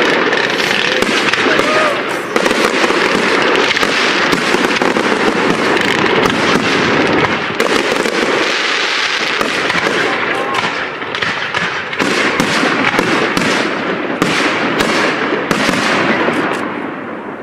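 Aerial fireworks display: a dense, continuous crackle of shells and crackling effects bursting, thick with sharp cracks, thinning out and fading near the end.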